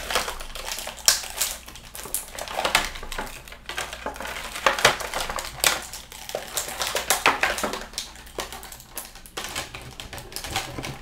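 Plastic action-figure packaging being handled and pulled apart: a run of irregular clicks, taps and crackling rustles as the figure's accessory pieces are worked free.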